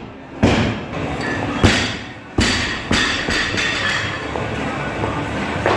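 A loaded barbell with bumper plates dropped onto a lifting platform, hitting with a heavy thud and then bouncing a few times, the thuds coming closer together.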